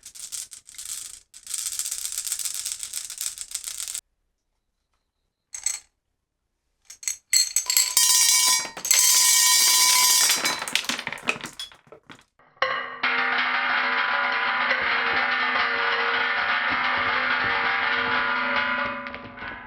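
Marbles rolling and rattling down a toy marble run track, in two stretches with a short silence and a single click between them. About thirteen seconds in, background music with a steady beat takes over and fades near the end.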